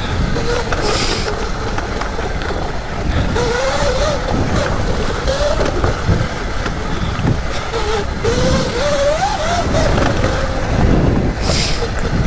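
Sur Ron electric dirt bike's motor whining while ridden off-road, its pitch rising and falling with the throttle. Heavy wind and ground rumble on the microphone sit under it.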